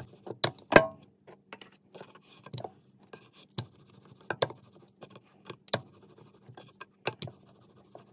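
Wooden rolling pin rolling out dough on a floured bamboo cutting board: soft scraping and rubbing, broken by irregular knocks of the pin against the board, the loudest a little under a second in.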